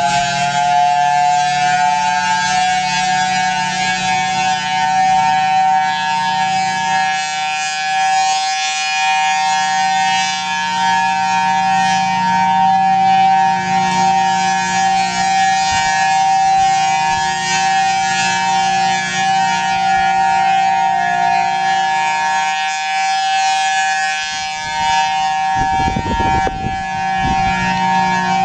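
Federal Signal Thunderbolt 1003 outdoor warning siren sounding a steady tone during its test, rising slightly to full pitch in the first couple of seconds and then holding. A brief low rumble comes in near the end.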